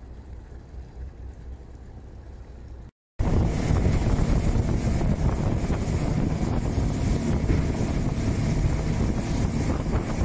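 A low rumble for about three seconds, then a sudden cut to a small motorboat under way on open sea: its engine runs steadily, mixed with wind buffeting the microphone.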